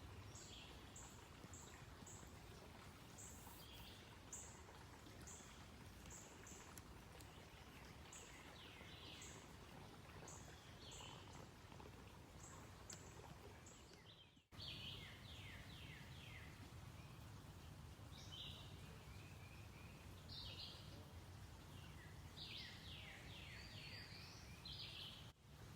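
Forest birds singing faintly over a steady low rushing background. For the first half a short high note repeats about every half second; after a brief break about halfway, quick runs of downward-slurred whistled notes take over.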